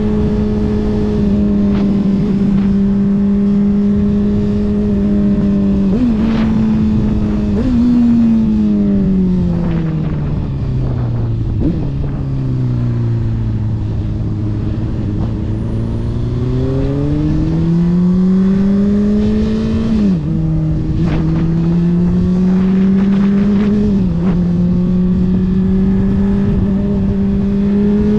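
Honda CBR600RR's inline-four engine through a Yoshimura RS-5 exhaust, heard from on the bike with wind noise. It runs steadily, the revs jump up twice about six and eight seconds in, then fall away slowly as the bike slows. It then pulls again, with the revs dropping at upshifts about twenty and twenty-four seconds in.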